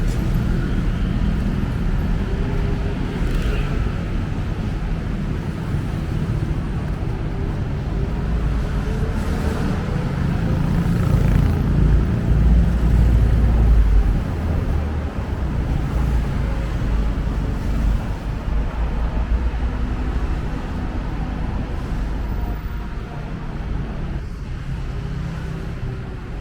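Busy city road traffic: a continuous low rumble of passing cars, swelling to its loudest about ten to fourteen seconds in and easing a little near the end.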